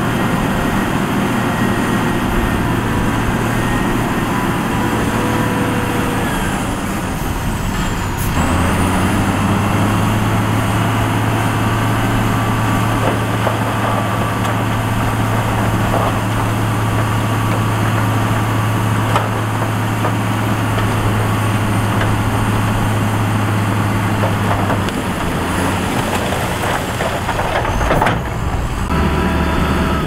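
Heavy diesel engine of construction machinery running under load. Its note steps up about eight seconds in, holds steady, and drops back near the end.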